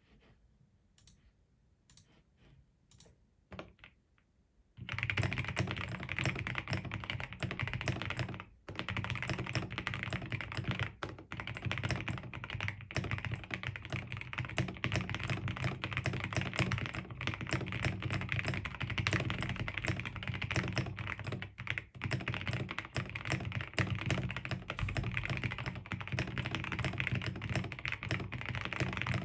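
Mechanical keyboard with lubed Gateron Cap Gold V1 linear switches, PE-foam and tape modded, with XDA keycaps, being typed on: a few faint, separate keystrokes at first, then fast continuous typing from about five seconds in.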